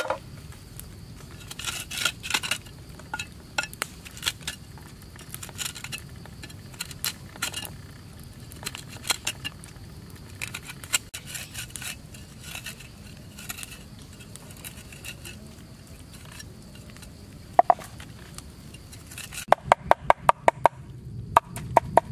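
Food being prepared by hand: scattered small clicks and knocks as chopped fish roe and herbs are handled and scraped into a metal pan with a cleaver. About two and a half seconds before the end, a cleaver starts chopping quickly and evenly on a wooden board, about five strokes a second.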